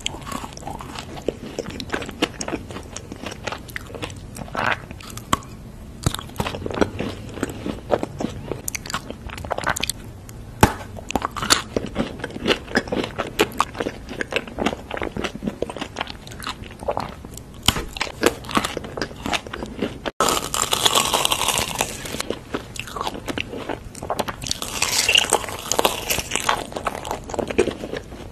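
Close-miked eating sounds: sharp snaps and crunches as teeth bite through pieces of solid chocolate bar, with chewing between bites. About twenty seconds in, after a sudden cut, come longer spells of dense crunching and chewing.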